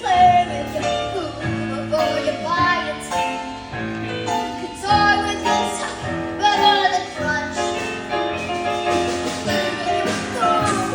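Musical-theatre song: a young female voice singing over instrumental accompaniment.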